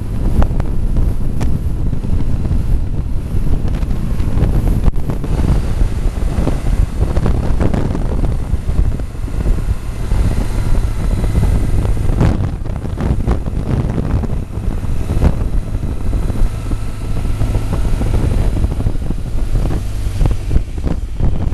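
Wind buffeting the microphone of a camera mounted on a moving motorcycle, over the noise of the bike running at road speed. The level rises and falls unevenly with the gusts.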